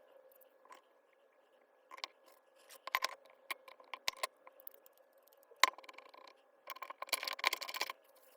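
Small parts and tools being handled during a cordless hammer drill teardown: scattered clicks and taps of hard parts, then a denser stretch of clicking and scraping near the end.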